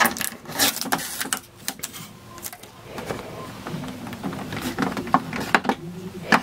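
Plastic wrapping crinkling, with irregular clicks and taps, as hands handle the plastic ink tank unit on the side of an Epson EcoTank printer.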